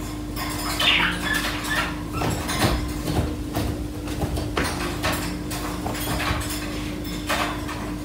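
Irregular rustling, scratching and light taps, with a brief higher squeak about a second in, over a steady low hum.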